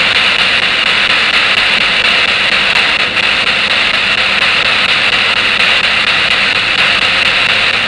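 Spirit box sweeping through radio stations, giving a steady loud hiss of radio static. The uploader presents this as a spirit's reply, 'It's Charles'.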